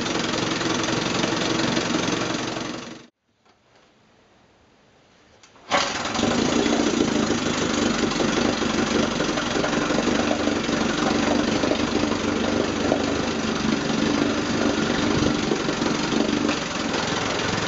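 1958 Evinrude Fastwin 18 HP two-cylinder two-stroke outboard motor running. About three seconds in it dies away to near quiet. A few seconds later it comes back abruptly and runs steadily.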